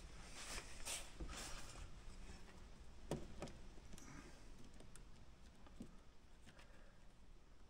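Faint, scattered clicks and light taps of small parts being handled on the upturned RC truck's chassis while a drive shaft and transfer case are fitted. A cluster comes in the first two seconds, two more a little after three seconds, then fewer and fainter.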